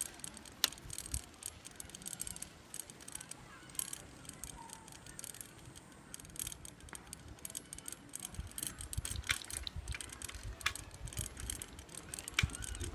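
Bicycle being ridden along a paved path, its parts giving scattered sharp rattles and clicks, more often in the second half. Low wind rumble on the microphone comes and goes.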